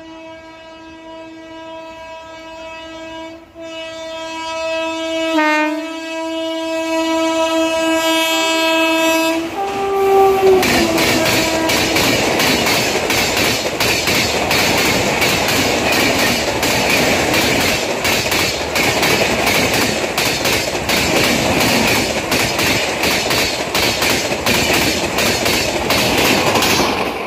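WAP-7 electric locomotive's horn sounding a long, steady note with brief breaks, dropping in pitch at about ten seconds in as the locomotive passes. The horn then gives way to the loud rush and rhythmic clatter of an express train's LHB coach wheels over the rail joints at about 130 km/h.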